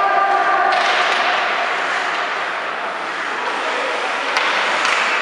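Ice hockey play on a rink: a steady scraping hiss of skates on ice, with sharp clacks of sticks and puck about a second in and twice near the end, and a brief shout at the start.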